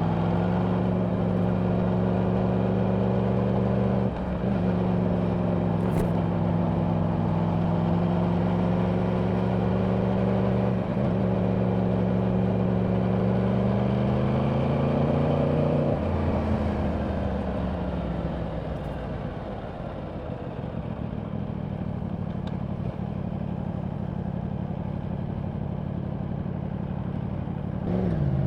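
A 2024 Yamaha R1's crossplane inline-four running on its stock exhaust under steady throttle, with wind rush throughout. The note breaks twice with quick gear changes, about four and eleven seconds in, then the revs climb. About halfway through the throttle closes and the engine note falls away to a quieter overrun, picking up again right at the end.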